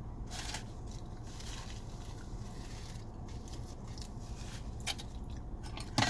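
Close-miked chewing of a burrito: scattered wet smacks and small mouth clicks over a steady low hum, with a sharper smack near the end.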